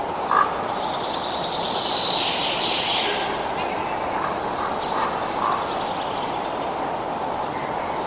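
Birds chirping and calling over a steady rushing background noise.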